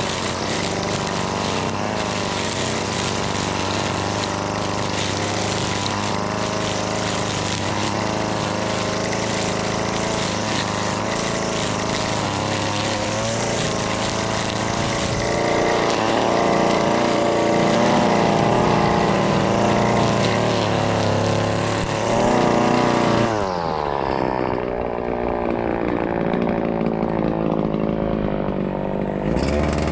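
A Husqvarna 525L string trimmer's small two-stroke engine running at working speed while cutting, its pitch rising a little around the middle. About three-quarters of the way through, the throttle is let off and the engine pitch falls away to a lower, quieter run.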